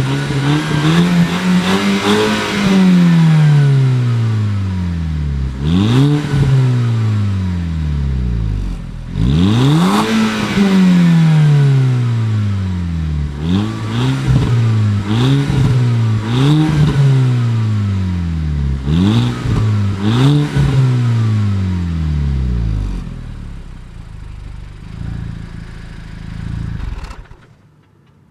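Volkswagen Golf GTI Mk5's turbocharged 2.0-litre four-cylinder free-revving: about eight blips of the throttle, a couple held longer and higher, each falling slowly back. It then idles for a few seconds before the sound cuts off.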